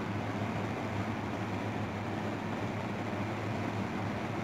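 Repaired 220 V kitchen exhaust fan motor running steadily with its blade spinning: a steady low hum under an even rush of air. It is turning at full speed again, its low-speed fault cured.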